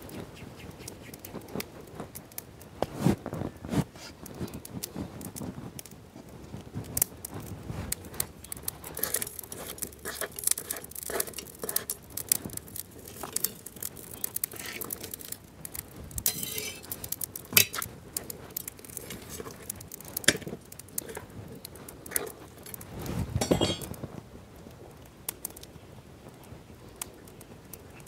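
Scattered clicks, taps and light crackling of cooking thick wheat flatbreads over a small wood fire: dough being handled and the bread on a griddle over the flames, with a few louder knocks, twice standing out.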